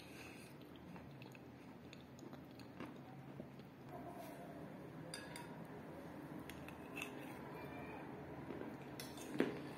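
Mouth chewing a wet mixture of kaolin clay and crumbled chalk, with scattered small clicks and crunches. A sharper click comes near the end.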